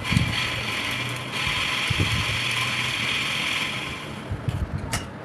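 Washing machine motor, freshly fitted with new 6202 bearings, running on a test run with a steady whir that stops about four seconds in, followed by a few knocks and clicks.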